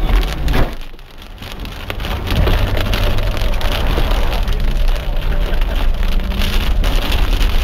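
Rain hitting a moving vehicle's windshield and body, heard from inside the cab, over the steady low rumble of the vehicle driving on a gravel road. The sound drops briefly about a second in, then comes back.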